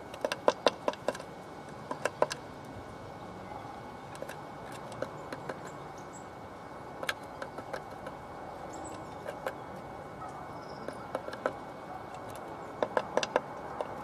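Blue tit pecking at the wooden rim of a nest box entrance hole: sharp taps in quick runs, one near the start, a couple around two seconds in and another cluster near the end, with single taps between.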